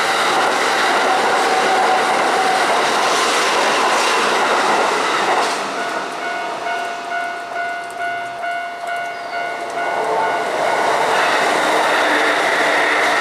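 Kintetsu electric train running past with rail noise for the first five seconds, then a second train passing from about ten seconds in. Between and under the trains a level-crossing bell rings in a steady ding about twice a second.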